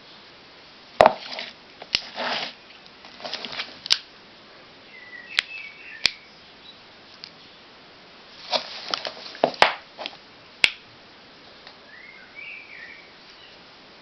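Fireworks packaging being handled: irregular rustling and scraping with sharp clicks and taps, and a couple of short chirping squeaks.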